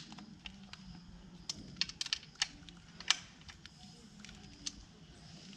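Scattered light clicks and taps of hand tools and small parts being handled. They come irregularly, about a dozen, with the sharpest one about three seconds in.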